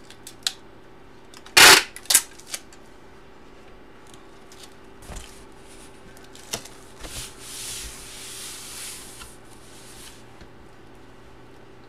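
Hands tearing open and handling trading-card packaging: a sharp rip of the wrapper about two seconds in, then scattered taps and clicks, then a longer rustle of paper and plastic sliding across the table.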